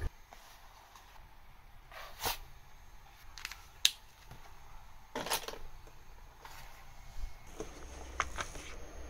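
A pocket sketchbook handled on a tabletop: scattered soft taps and paper rustles as its cover is opened and the pages are turned, with one sharper click about four seconds in.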